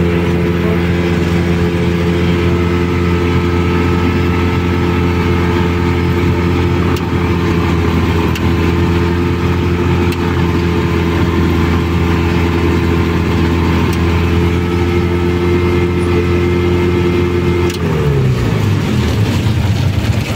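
Rans S6ES Coyote microlight's engine idling steadily, heard from the cockpit. It is switched off at the magnetos near the end and runs down with a falling pitch.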